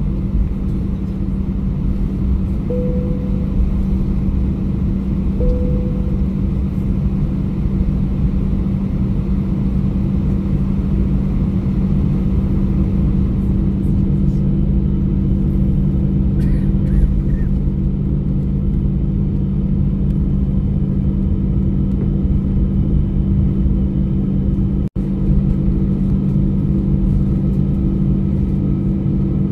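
Airbus A320 cabin noise during takeoff: the jet engines running at high power over a steady, loud low rumble, with a deeper hum joining about halfway through. The sound cuts out for an instant near the end.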